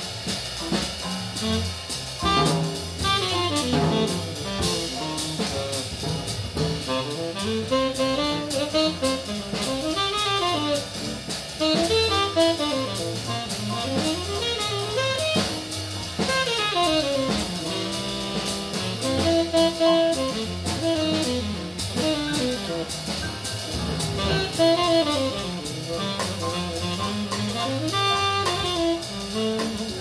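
Small jazz group playing live: a tenor saxophone solos in running melodic lines over drum kit, double bass, guitar and piano.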